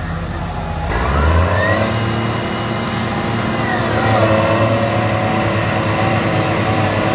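Diesel engines of two big tractors, a John Deere and a red tractor, running hard under heavy load as they pull against each other in a tug-of-war. About a second in, the engines rev up sharply and stay loud.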